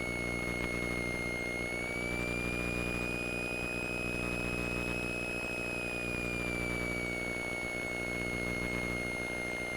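Cessna 172's piston engine running steadily at reduced power on approach, heard inside the cockpit, with a high whine that drifts slightly up in pitch and back down.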